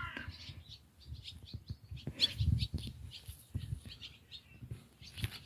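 Small birds chirping in many short, high notes, over soft low thuds and rumbling.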